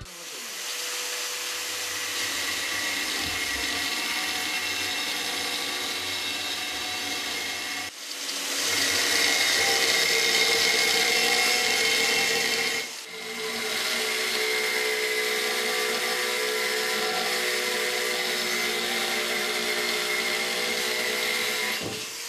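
Electric angle grinder with a diamond cut-off wheel wet-cutting through plate glass: a steady high whine over a hiss. It breaks off briefly twice, about eight and thirteen seconds in.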